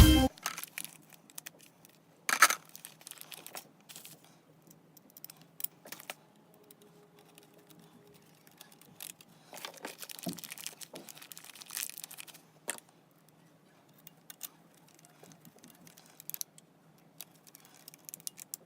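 Hands handling small parts and packaging: scattered clicks, light clinks and brief crinkling of plastic, with a sharper knock about two seconds in.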